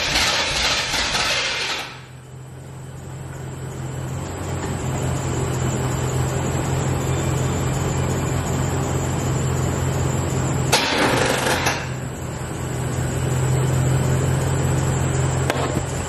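Chevrolet C4 Corvette V8 being cranked on a jump start: a loud burst in the first two seconds and again about eleven seconds in as it turns over and tries to catch, with a steady low hum between. It wants to start but won't keep running, which the owner puts down to the battery starting to die.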